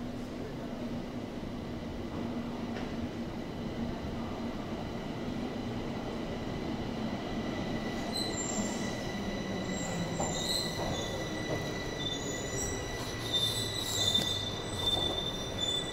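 Bombardier Movia 346 metro train running into an underground station, its wheels squealing in high tones from about halfway and growing louder as it nears, over a steady low hum.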